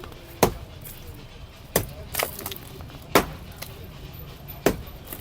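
Five sharp blows, about one every second and a half, from a hand tool striking a roadside structure being knocked down.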